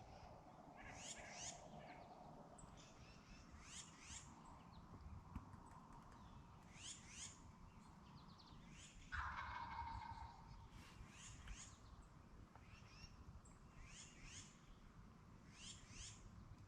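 A wild turkey gobbler gobbles once, a sudden rattling call lasting about a second and a half, about nine seconds in. Songbirds chirp repeatedly, in short high notes, throughout.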